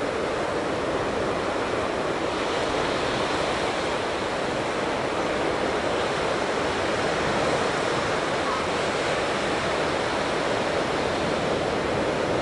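Ocean surf breaking on a sandy beach: a steady wash of waves, with wind mixed in.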